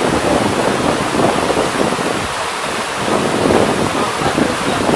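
Wind buffeting the microphone: a gusty, rushing rumble with no clear pitch.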